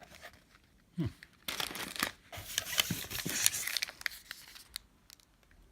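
Snack packaging crinkling and rustling as it is handled, a dense crackle with many small clicks in the middle of the stretch, tapering off to a few scattered clicks near the end.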